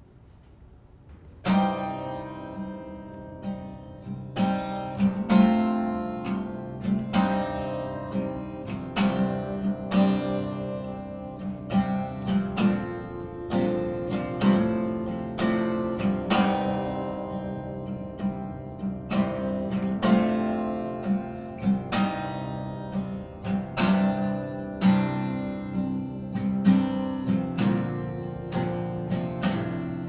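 Acoustic guitar strummed in repeated chord strokes as a song's instrumental introduction, starting suddenly about a second and a half in, with no singing.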